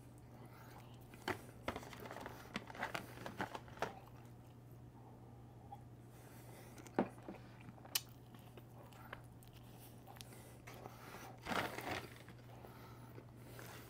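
Eating sounds: faint chewing and the crinkling of snack-cake packaging, coming as scattered crackles with a few sharp clicks.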